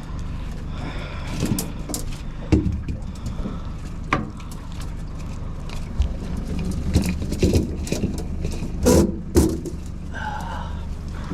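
Irregular knocks and clunks of a crab pot and gear being handled, over a steady low rumble.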